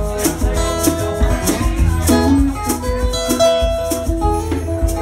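Acoustic guitar playing a melodic instrumental passage of held and plucked notes over a steady beat of hand percussion, with no singing.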